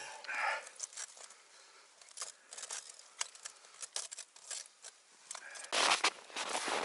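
Scattered small metallic clicks and rustling of snow as a KP-320 body-grip beaver trap is handled and set. Near the end comes a louder, noisy burst of crunching snow.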